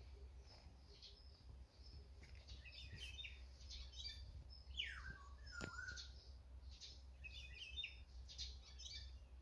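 Faint mixed birdsong: black-naped orioles and sparrows singing and chirping, a scatter of short high calls with a steeply falling whistle about five seconds in.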